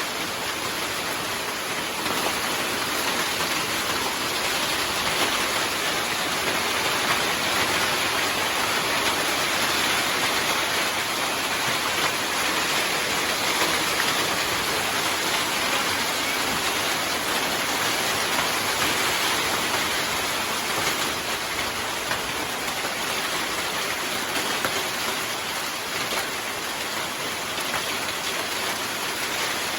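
Hailstorm: hail and heavy rain pelting down, a dense steady hiss of impacts that grows a little heavier through the middle.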